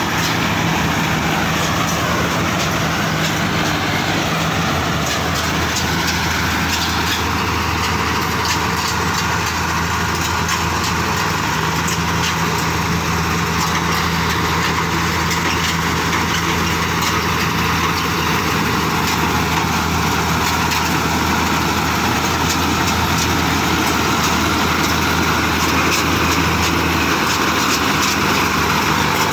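Mahindra Arjun tractor-mounted combine harvester running steadily as it cuts paddy: the tractor's diesel engine drone under a continuous rattle of the header and threshing machinery.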